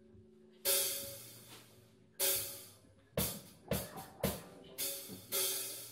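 A rock band's drum kit playing sparse crash-cymbal hits with drum strokes, each ringing out, first about a second and a half apart and then coming quicker from about three seconds in, over a low held note.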